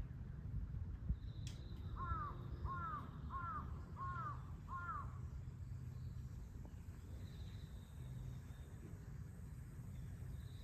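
A crow cawing five times in a quick, even series, about two seconds in, over steady outdoor background noise.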